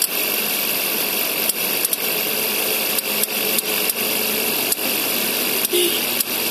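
Suzuki SX4's M15A four-cylinder engine running steadily with sharp, irregular clicks about once or twice a second over it: the clicking noise that the owner puts down to the air-conditioning compressor.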